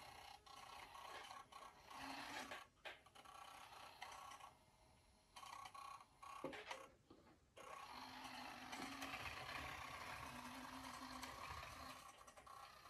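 Near silence with a faint whir from a 1:87 scale micro RC truck's tiny electric drive motor and gears as it drives, fading in and out, with two brief complete dropouts in the first half.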